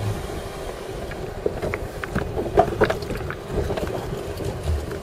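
Jeep running slowly along a rough dirt track, heard from inside the cabin: a steady engine and tyre rumble with scattered knocks and rattles as it jolts over the ruts, most of them between about one and a half and three seconds in.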